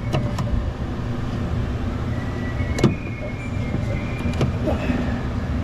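A few sharp plastic clicks as fingers try to snap open the clip on a car door's inner handle rod, with the clip not releasing. A steady low rumble runs underneath.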